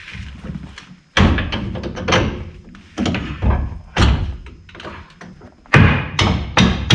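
Irregular series of heavy knocks and thuds, about eight in all and unevenly spaced, with short ringing tails: metal parts being struck or seated during work on a pickup's front suspension and axles.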